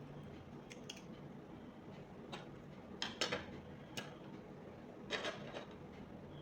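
Light clicks and taps of small electronic parts being handled on a workbench, header pins being set onto a Wemos D1 Mini board. A few scattered clicks, the loudest cluster about three seconds in.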